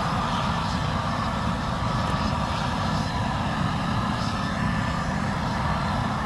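Hand-held propane torch burning steadily, a constant rushing flame noise, as it singes squirrel carcasses on a grill.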